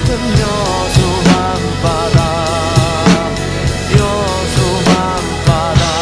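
Acoustic drum kit played live over the recorded pop song's instrumental passage: a steady kick-and-snare beat with cymbals.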